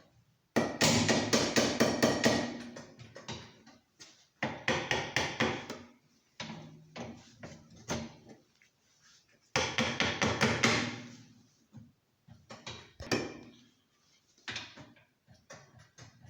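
Pneumatic impact wrench hammering a bolt on a VW Polo's rear suspension in three main bursts of rapid rattling, each about one to two seconds long and tailing off, with shorter bursts between.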